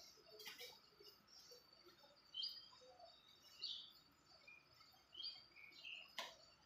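Faint bird chirps, short high calls every second or so, with a sharp knock about six seconds in.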